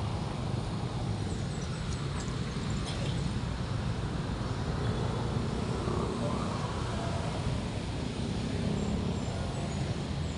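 Steady city street noise: a continuous low rumble of road traffic with no single event standing out.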